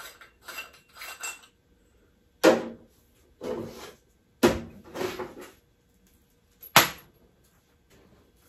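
Metal faucet parts knocking against a stainless steel sink: a few light clicks at first, then three sharp metallic clanks about two seconds apart, with softer knocks between them.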